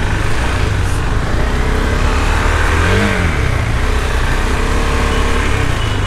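KTM 390 Adventure's single-cylinder engine running at low speed, with one brief rev that rises and falls in pitch about three seconds in.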